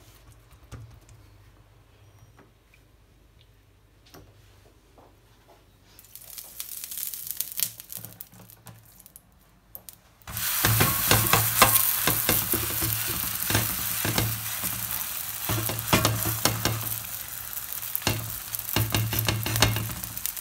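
Stuffed msemen dough frying in oil on a hot griddle pan. A sudden, loud sizzle full of crackling pops starts about halfway through and carries on. Before it there are only soft handling sounds of oily dough being pressed and a fainter hiss.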